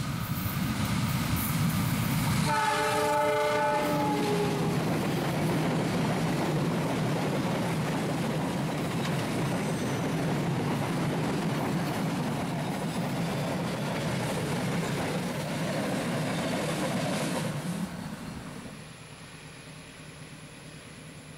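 Diesel locomotive sounding a short multi-tone horn blast about two seconds in as it approaches. It is followed by a long steady rush of steel wheels on rail as its tank wagons roll past close by, dropping to a quieter rumble near the end.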